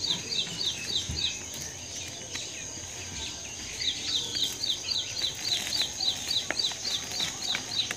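A bird calling a rapid series of short falling chirps, about four a second, that breaks off about a second and a half in and resumes about two seconds later. A steady high-pitched drone runs underneath.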